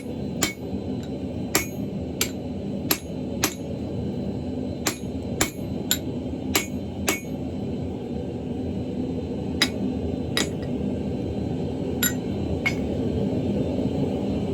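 Hand hammer blows on a steel axle-shaft workpiece on an anvil while forging a hammer head: about a dozen sharp ringing strikes, many in pairs about half a second apart, with a pause of a couple of seconds in the middle. A steady low rumble runs underneath and grows slightly louder toward the end.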